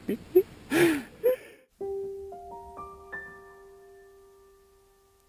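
After a second or so of brief outdoor voice sounds, background music cuts in abruptly. A solo piano plays a broken chord, its notes entering one by one and rising in pitch, each ringing on and slowly fading away.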